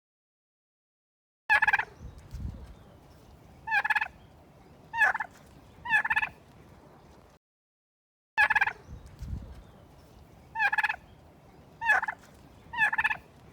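Domestic turkey gobbling: four short rattling gobbles, with a low rumble after the first, then a brief silence and the same four gobbles again.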